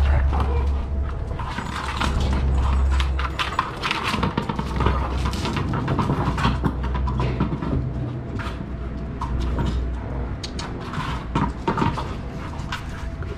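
Irregular clicks, scuffs and knocks of dogs and a puppy moving about on concrete and brick paving, over a low rumble on the microphone that drops out briefly at about three and a half seconds and fades after about nine seconds.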